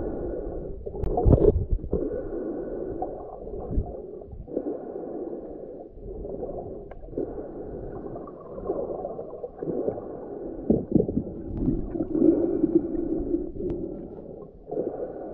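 Muffled rush and gurgle of moving water, heard underwater through a camera's waterproof housing. It swells and fades every second or two, with a couple of sharp knocks.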